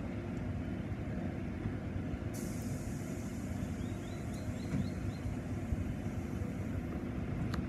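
Sydney Trains C set electric double-deck train standing at the platform, running with a steady low hum. A hiss of air starts suddenly about two seconds in and carries on.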